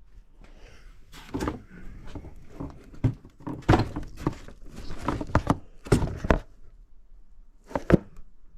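A string of irregular knocks and clunks from hard objects being handled, about a dozen of them at uneven spacing.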